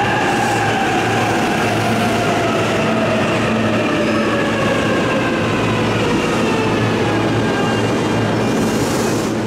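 Electric commuter train slowing into the platform, its traction motors whining in several tones that fall slowly in pitch as it brakes, over a steady rolling noise of wheels on rail.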